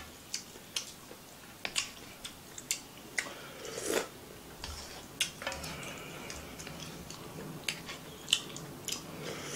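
Close-up eating of ramen: wet mouth clicks and chewing, with a slurp of broth from a spoon about four seconds in.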